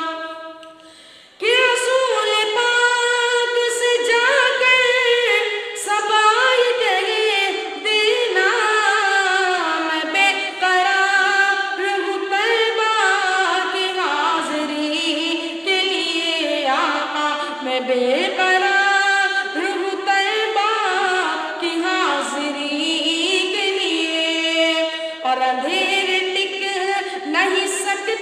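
A boy's solo voice singing a naat, an unaccompanied Urdu devotional song, into a handheld microphone, with long ornamented notes that glide up and down. The voice drops away briefly about a second in, then sings on without a break.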